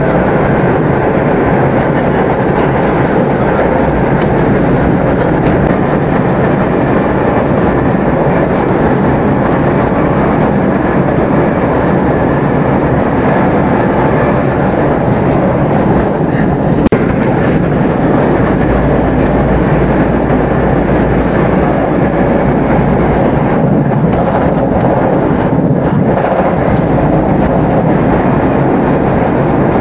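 Class 387 electric multiple unit running at speed, heard from inside the carriage: a steady running noise of wheels on rail. One brief knock a little past halfway.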